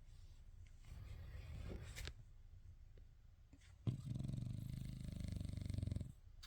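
French bulldog snoring in its sleep: a softer snoring breath about a second in, then a louder snore with a fast flutter from about four to six seconds.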